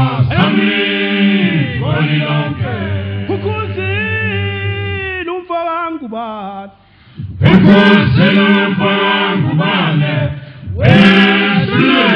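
Zulu male a cappella choir singing in the isicathamiya (cothoza mfana) style, with deep bass voices holding long notes under the higher parts. The singing breaks off briefly a little past halfway, then comes back in full.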